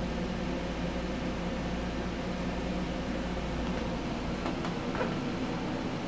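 52-inch Home Decorators Collection Windward ceiling fan running, a steady whooshing hum of its motor and five blades moving air, with a few faint ticks about four to five seconds in.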